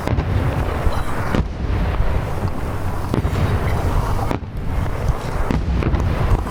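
Large-shell starmine fireworks barrage: a continuous low rumble of booming bursts, with sharper bangs about every second or so.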